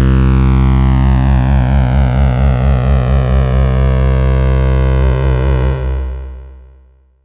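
Sequential Trigon 6 analog synthesizer playing its 'Solar Lead' preset: a held sound with a bright sweep that closes downward. It fades out to silence near the end.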